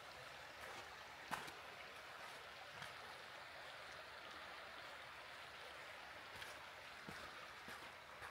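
Faint, steady rush of a flowing creek, with a few short knocks or steps over it, the sharpest about a second and a half in.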